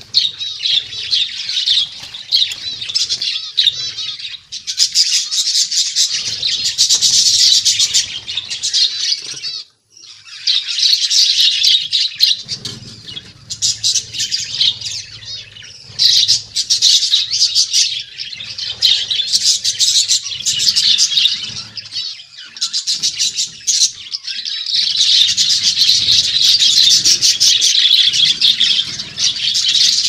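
A flock of budgerigars chirping and chattering in a dense, continuous stream of high-pitched calls, with a short break about ten seconds in.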